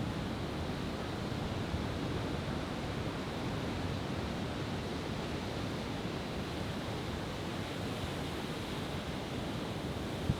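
Steady wash of surf breaking on a beach, with no firework bursts, and one brief tick near the end.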